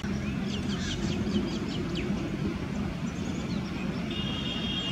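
Several birds chirping in quick short calls over a steady low outdoor rumble, with a thin high held note near the end.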